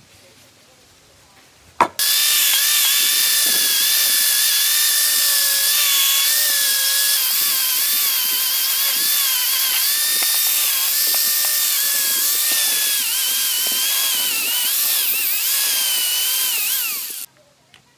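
Electric angle grinder with a wire wheel brush, switched on with a click about two seconds in and scouring rust off a steel vise part. Its motor whine wavers in pitch as the wheel is pressed against the metal, and it stops abruptly near the end.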